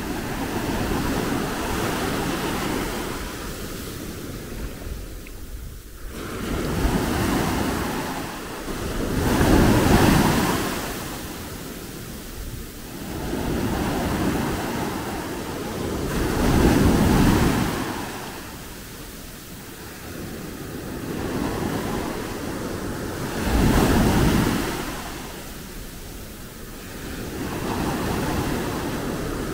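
Sea waves breaking and washing up the shore, surging and falling away about every three to four seconds.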